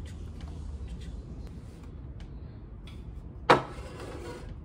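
A few light taps as baking tools are set out, then, about three and a half seconds in, a loaf pan is put down on the table with one loud knock that rings briefly. A steady low rumble runs underneath.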